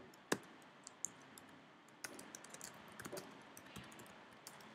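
Computer keyboard keys being typed and backspaced as code is edited, a run of faint, irregular clicks. There is one sharper click about a third of a second in and quicker keystrokes in the second half.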